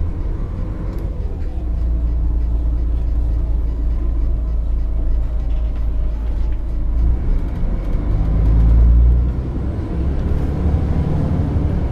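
Alexander ALX400-bodied DAF DB250 double-decker bus heard from inside while driving: its diesel engine runs with a steady low rumble, getting louder for about a second some eight seconds in.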